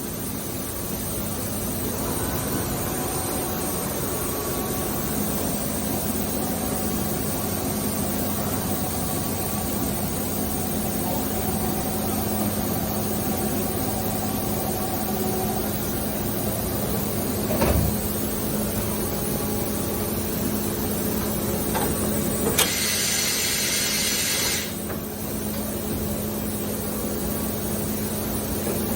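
Okuma & Howa Millac 853PF-5X CNC machining center running under power: a steady mechanical hum with a constant low tone. A single knock comes a little past halfway, and a loud hiss lasts about two seconds later on.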